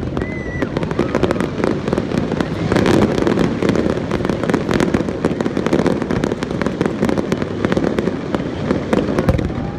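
Aerial fireworks display: a dense, continuous barrage of crackles and bangs from bursting shells, with a short whistling tone about half a second in.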